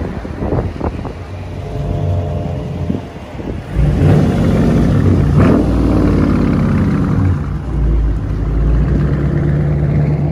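Dodge Charger's Hemi V8 running loud, blipped a couple of times at the start, then revved hard about four seconds in, its pitch climbing and falling over a few seconds, and revved again around eight seconds in.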